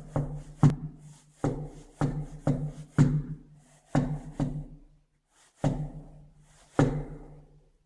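Repeated heavy knocking on a door: about a dozen irregular blows, single or in quick pairs, each followed by a brief low booming ring.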